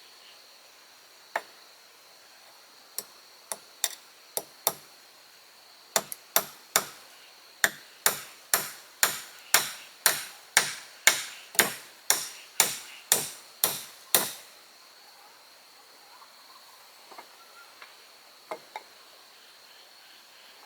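Sharp blows of a tool striking wood. A few scattered strikes come first, then a steady run of about two blows a second lasting some seven seconds, which stops about fourteen seconds in, and a few faint knocks follow. A steady high whine sits underneath.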